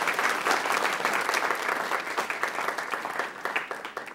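Audience applauding, many hands clapping at once; it dies away near the end.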